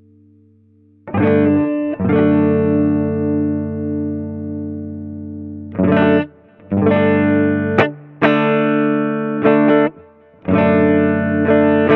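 Electric guitar played through the Ampero II Stomp's Comparoma 4 compressor, a Keeley C4 model, with sustain and attack turned up. A chord is struck, hit again and left to ring for several seconds, then a run of short strummed chords follows. The compression gives the clean tone a slightly gritty, drive-like edge.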